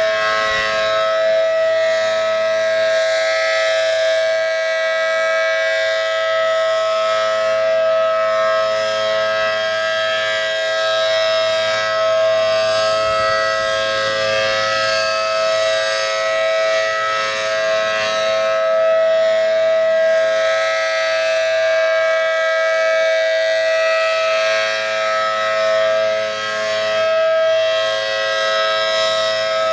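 ACA Allertor 125 electromechanical siren with a 10/12 port rotor, running at full speed on a steady wail, a chord of two close tones held level, with loudness swelling and easing slightly.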